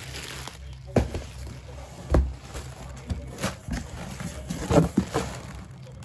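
Handling noise: a few sharp knocks and thumps with rustling between them, from things being moved about on a wooden floor, over a steady low hum.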